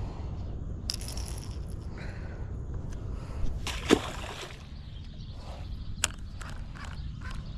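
A largemouth bass released back into a pond hits the water with a single splash about four seconds in, over a steady low rumble.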